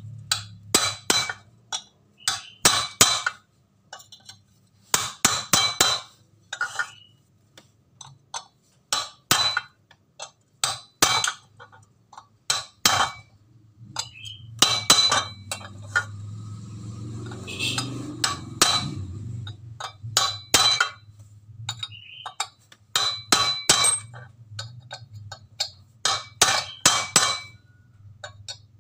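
Steel punch striking the Honda Beat crankshaft assembly: sharp metallic taps in quick clusters of three to five, with a short ring after each, repeated every second or two while a part is seated on the crank.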